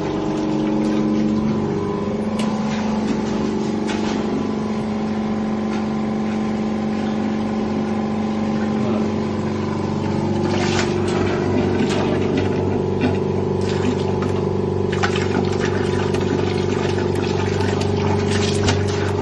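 Electric pump running steadily, circulating cleaning liquid while a combi boiler is flushed. Its hum shifts to a higher tone about ten seconds in, and scattered clicks and crackles follow.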